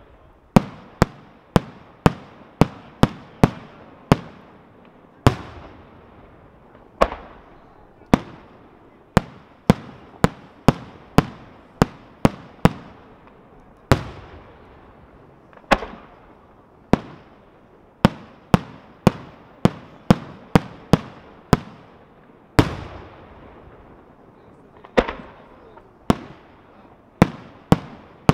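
Aerial firework shells bursting in a long, irregular series of sharp bangs, each trailing off in an echoing tail; at the busiest moments two or three bangs a second.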